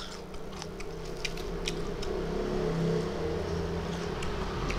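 A steady low hum runs under soft clicks and smacks of chewing and fingers working rice on a plate.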